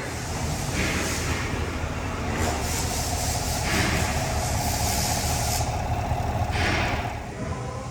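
A vehicle engine running steadily, with several short hissing bursts and a steady whine over its middle part.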